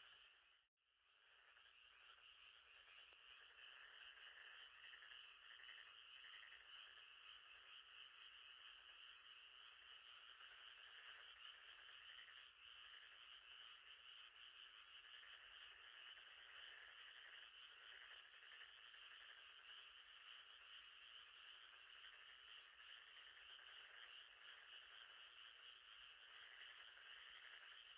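Faint, steady night chorus of frogs calling over a lake, a dense texture of many overlapping calls. It cuts out for an instant just under a second in, then resumes.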